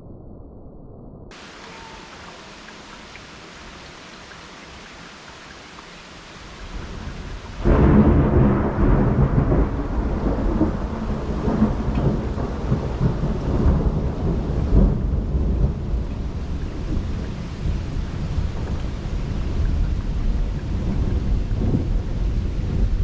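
Steady rain hiss, then a thunderclap about seven and a half seconds in that rolls on as a long, uneven rumble over the rain.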